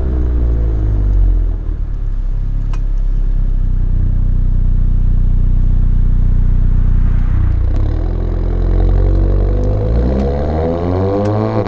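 Mk7 Volkswagen Golf GTI's turbocharged four-cylinder engine and aftermarket exhaust with an ATP downpipe, driving. Revs fall off at first and then hold steady for several seconds. After a short dip about three-quarters of the way through, like a gear change, the engine note climbs as the car accelerates.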